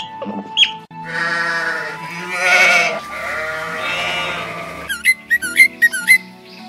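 Sheep bleating: a long, wavering bleat from about a second in, running into a second bleat, over background music. Two short high squeaks come right at the start. Near the end a bird gives a quick run of about six short high chirps.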